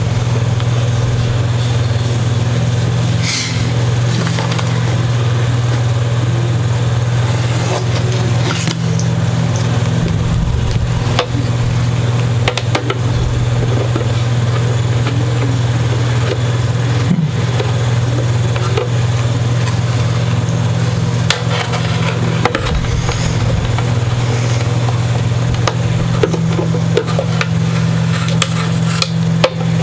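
A steady low hum throughout, with scattered small clicks and taps.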